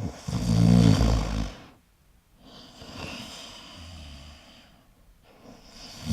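Koala snoring: a loud, low snore lasting about a second and a half, a short pause, then a quieter, longer breathing sound that fades out.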